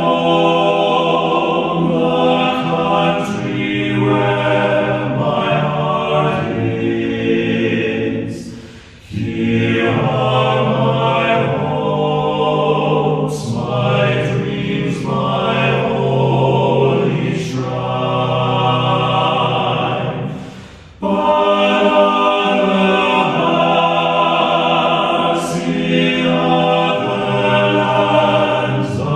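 Choral music: voices singing long held chords, with two short breaks between phrases about nine and twenty-one seconds in.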